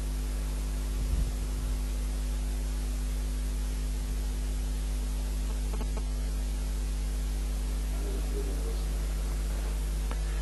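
Steady electrical mains hum with an even hiss of static underneath; nothing else stands out.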